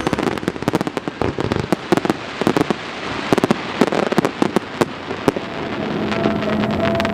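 Fireworks display: a rapid, dense run of pops and crackles that thins out after about five seconds.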